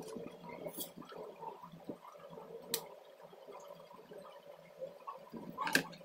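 Light clicks and taps of circuit boards and wiring being handled on a workbench, a few sharp ones, the loudest near the end, over a faint steady background noise.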